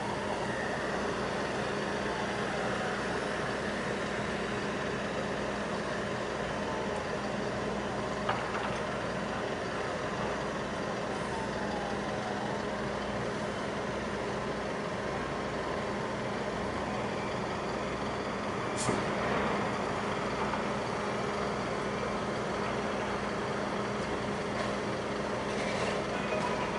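Steady engine drone with a constant low hum, with a couple of short knocks about a third and two-thirds of the way through.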